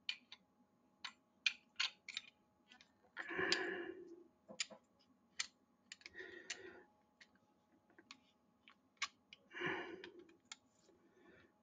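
Faint, scattered metal clicks and clinks of Colt 1911 pistol parts being handled and fitted together during reassembly, with three longer, softer rushes of noise a few seconds apart.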